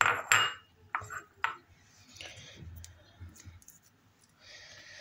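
A few sharp metallic clinks on a stainless steel pot, the first two loudest and ringing briefly. Softer rustling follows as the spinach and cheese filling is mixed.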